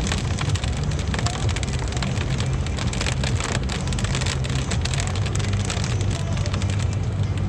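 Heavy rain pouring down, a dense, even patter of countless drops with a steady low rumble underneath.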